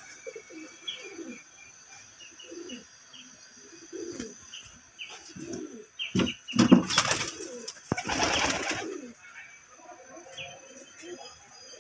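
Domestic pigeons cooing over and over in a loft, with a loud burst of wing flapping about six to nine seconds in. Faint short chirps of small birds are heard too.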